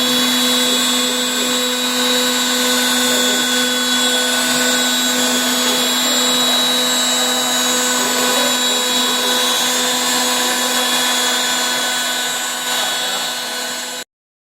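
Suda ST-8070 CNC engraving-milling machine running, its spindle giving a steady high whine over cutting noise as it mills foamed PVC sheet. The sound stops abruptly near the end.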